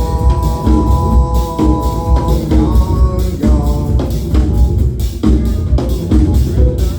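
Live band playing an instrumental passage with no vocals: a drum kit beating steadily over a heavy bass line, with a held chord in the middle register for the first couple of seconds.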